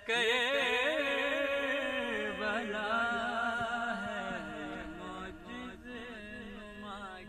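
Male voice singing an Urdu manqabat, drawing the word out in long, wavering, ornamented held notes.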